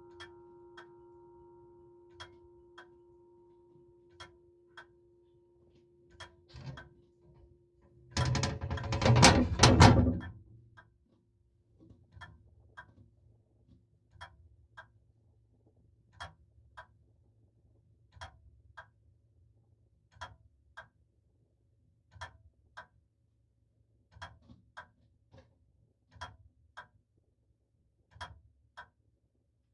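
E. Howard & Co. No. 82 grandfather clock ticking, its beats coming in uneven pairs about every two seconds, while the ring of a strike fades away over the first few seconds. About eight seconds in, a loud clatter lasts about two seconds.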